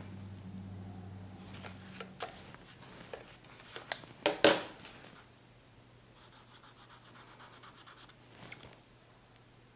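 Desk handling sounds: a few light clicks, then a loud double clack about four seconds in as a metal bookmark clip is taken off a notebook. From about six seconds a faint scratchy rubbing follows as an ink-loaded swab is dabbed and rubbed onto paper.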